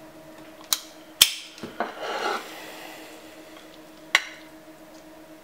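Kitchen utensils clinking and knocking against dishes and a pan while food is plated: four sharp clinks, the loudest about a second in, with a short scrape around two seconds in.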